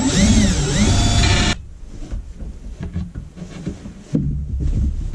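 Power drill with a hole saw spinning up against plywood, its pitch rising and falling as the trigger is worked, then stopping abruptly about a second and a half in. Quieter handling sounds follow, and it gets louder again near the end.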